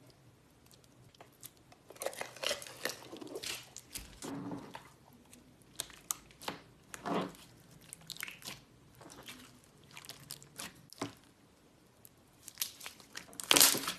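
Slime being squeezed and pressed by hand, giving irregular crunchy crackles and little pops, with a louder burst near the end.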